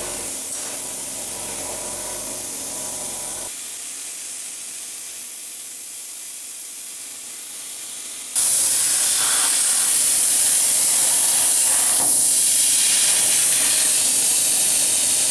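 A steady hiss of rushing air. It drops quieter about three and a half seconds in, then jumps suddenly much louder and higher about eight seconds in and holds there.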